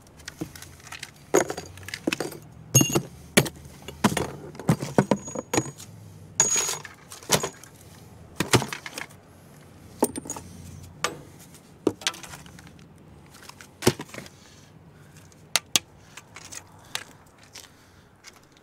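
Pieces of scrap metal clinking and clattering as they are rummaged through and moved by hand: irregular sharp knocks, busiest in the first half and thinning out later, some with a short high metallic ring.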